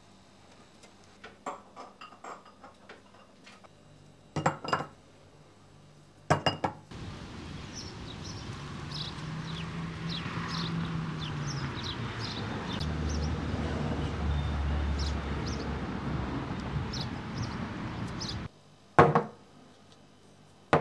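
Kitchen work sounds: light clinks of dishes and two sharp knocks. Then about eleven seconds of steady hissing noise with a low hum and small ticks, growing slightly louder before it cuts off suddenly. Another knock follows near the end.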